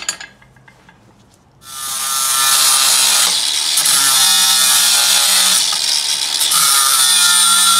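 Electric angle grinder spinning up about one and a half seconds in, then grinding steel with a steady high whine. It is bevelling the end of a steel shifter rod into a cone.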